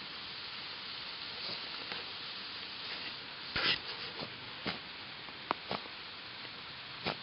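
Two dogs digging in loose dirt: steady scratching and scraping of paws in the soil, broken by a few short sharp sounds, the loudest about halfway through.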